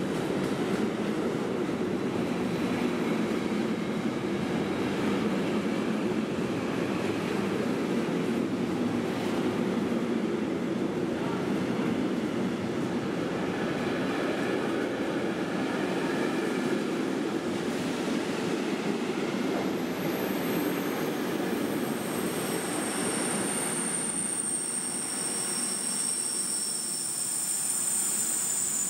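Freight train wagons rolling past at speed: a steady rumble of wheels on rail. A high-pitched squeal joins in about twenty seconds in and carries on to the end.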